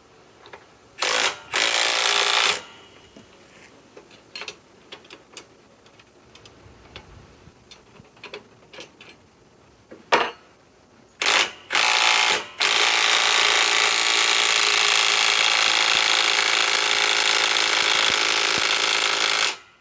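Milwaukee M12 Fuel 3/8-inch stubby cordless impact wrench tightening a fastener. There are two short bursts near the start and a few more about ten to twelve seconds in, then a steady run of hammering lasting about seven seconds that cuts off suddenly near the end.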